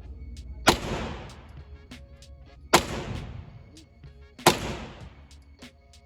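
Three gunshots about two seconds apart, each sharp crack followed by a short echoing decay, over background music.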